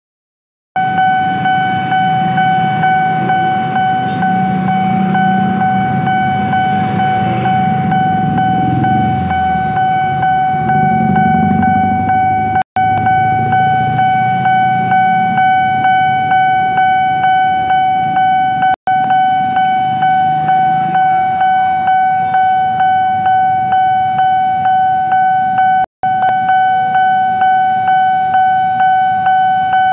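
Railway level-crossing warning bell ringing over and over at an even pace with a single steady pitch, the signal that the crossing barriers are down for an approaching train. Motorcycle and car engines idle and pass through the first half.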